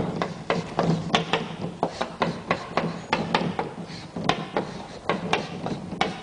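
Chalk tapping and scraping on a chalkboard as a formula is written out: an irregular run of sharp taps, several a second.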